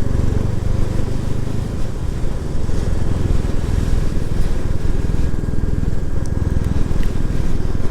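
Royal Enfield Classic 350's single-cylinder engine running steadily under way, a low, even engine note.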